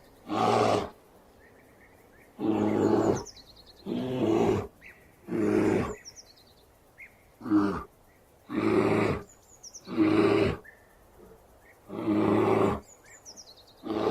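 A bear roaring and growling in a series of about eight short calls, each under a second, with brief pauses between them. Faint bird chirps sound in the gaps.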